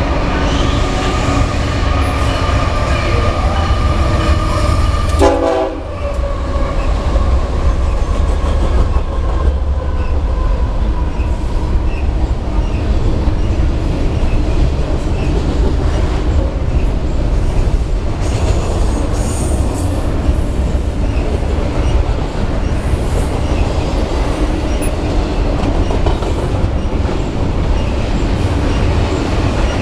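BNSF double-stack container train passing close by. The diesel locomotives come first, their steady tones drifting slightly lower in pitch as they go by, then the loaded container cars roll past with a continuous rumble and wheel clatter, with a faint high wheel squeal around twenty seconds in.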